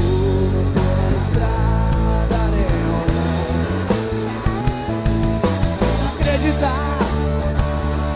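Live rock band playing: electric guitars over bass and a drum kit, with regular drum and cymbal hits and guitar notes that bend in pitch around the middle.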